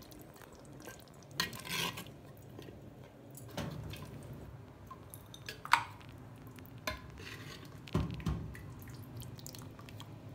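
Steel ladle scooping meat curry from a clay pot and knocking against it, with gravy dripping into a ceramic bowl. Scattered clinks and taps, the sharpest about halfway through.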